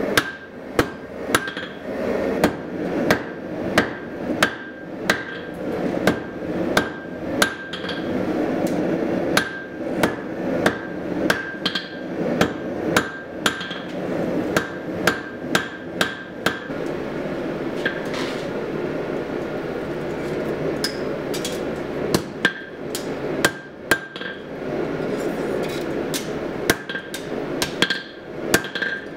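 Hand hammer striking a red-hot horseshoe held in tongs on an anvil, about two blows a second, each with a short metallic ring, over a steady rushing noise. The hammering stops for about five seconds past the middle and then resumes.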